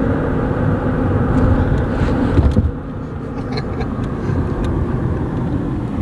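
Car moving slowly, with a steady low engine and road rumble. A thump comes about two and a half seconds in, after which the rumble is quieter.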